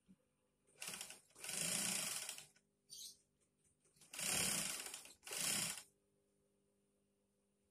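Industrial sewing machine stitching in short runs: five bursts of a second or less in the first six seconds, with pauses between as the fabric is guided.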